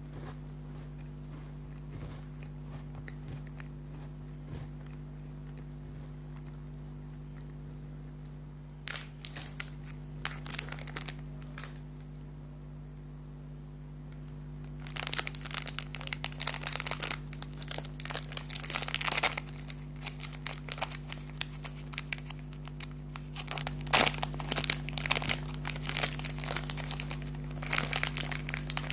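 Plastic food packaging crinkling and tearing as it is handled and opened, in short bursts from about 9 seconds in and denser stretches from about 15 seconds on, with a brief pause in between.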